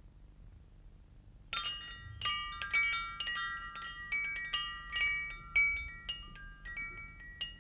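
Wind chimes hanging at a window, set ringing about a second and a half in. Irregular, overlapping strikes of several pitches ring on and fade.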